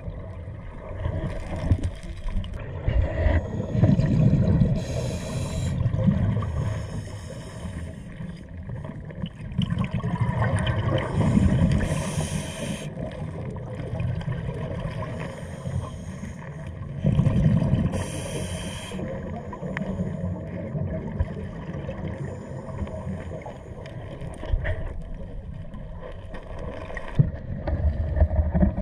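Scuba diver breathing on a regulator underwater: a low steady rumble, with a rush of exhaled bubbles about every six or seven seconds, three times.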